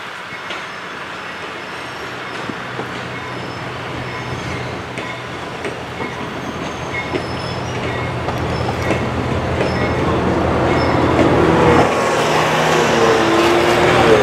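Norfolk Southern GP40-2 diesel-electric locomotive, with its EMD two-stroke V16, approaching with its train, the engine drone growing steadily louder. Near the end, higher pitched tones rise over the engine.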